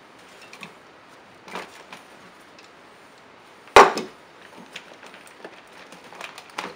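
HPI Savage X4.6 nitro RC monster truck being turned over on a hard tabletop: one sharp knock about four seconds in as it is set down on its side, with lighter clicks and rattles of its parts as it is handled.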